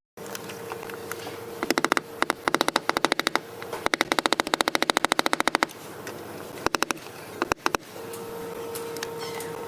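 Ratchet wrench clicking in quick runs, about a dozen clicks a second, several runs of one to two seconds each as fasteners are turned during the oil pan and fuel pump job.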